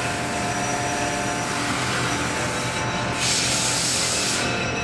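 Steady shop-floor machinery noise with a hum of several steady tones. A louder hiss rises about three seconds in and lasts about a second.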